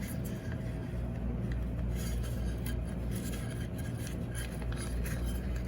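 Light scraping and small clicks of metal parts being handled as the back cover of a Garretson natural gas regulator is worked off, over a steady low hum.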